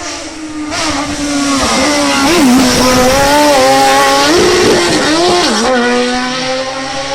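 Race car at full throttle on a hillclimb, passing close: the engine note swells to its loudest in the middle and then fades. The pitch drops and climbs back several times as it goes through the gears.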